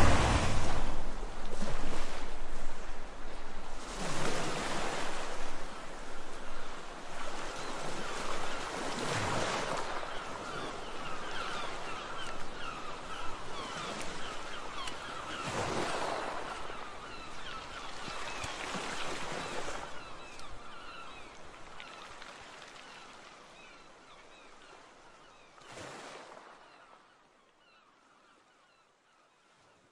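Sea waves washing onto a rocky shore, swelling and falling back in surges every few seconds, with birds calling faintly over them. The sound fades away near the end.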